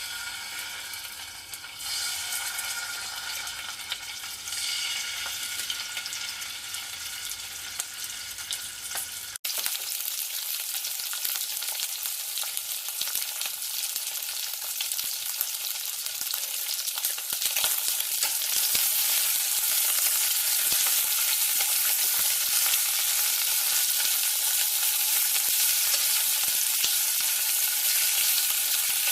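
Food frying in a pan of hot oil, a continuous dense crackle and sizzle of spitting oil. The first part has faint steady tones underneath. After an abrupt cut about nine and a half seconds in, the sizzle is denser and brighter, and it grows louder again around eighteen seconds.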